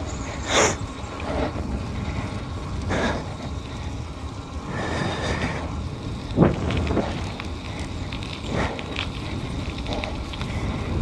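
DUOTTS C29 electric mountain bike rolling along an asphalt lane: a steady rumble of tyres and wind on the microphone, with a few short knocks and rattles from the bike over bumps.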